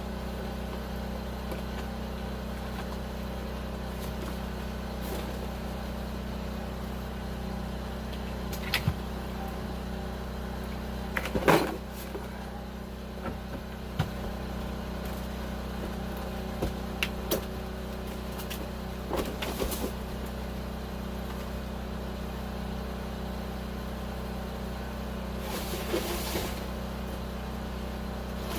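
A steady low motor drone, like an idling engine, with a few scattered knocks and clunks over it.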